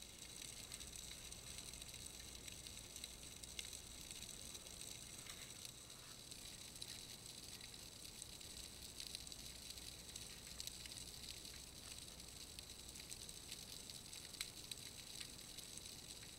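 Faint underwater crackling and hiss heard through a submerged fishing camera, with scattered sharp clicks throughout.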